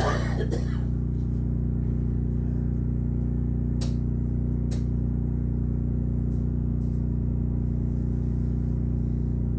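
Generator engine running steadily, a low even drone. Two short clicks sound about four and five seconds in.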